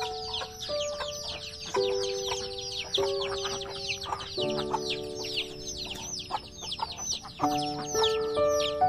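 A flock of chicks peeping continuously in rapid, high, falling chirps, over background music of slow, held notes.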